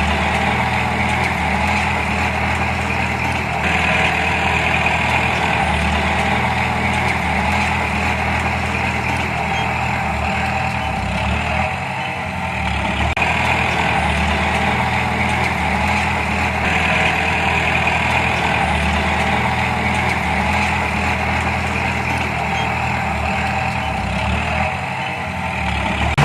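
Diesel engine of heavy earthmoving machinery running steadily, its note shifting slightly now and then.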